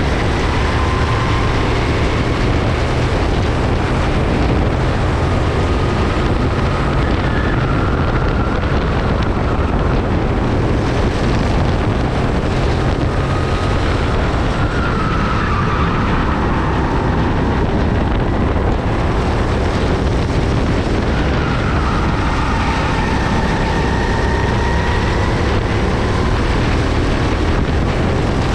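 Go-kart engine running flat out during a race, heard from a camera mounted on the kart, its pitch rising and falling every few seconds with the corners.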